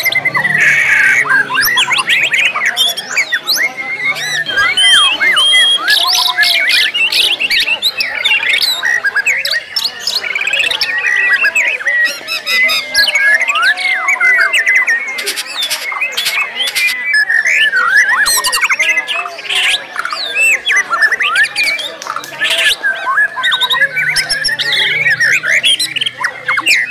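White-rumped shama (murai batu) singing: a fast, unbroken stream of varied whistles, trills and sharp chips, packed with mimicked calls of other birds.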